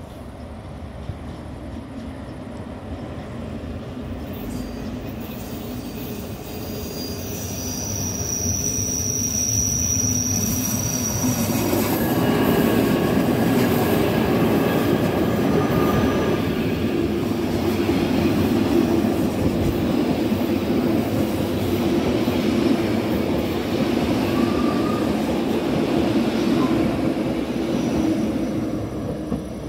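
Rhaetian Railway Bernina Express, a red metre-gauge electric train with panoramic coaches, approaching round a curve and passing close by. It grows louder over the first dozen seconds with a high wheel squeal about eight seconds in, then the coaches run past with steady wheel and rail noise that eases slightly near the end.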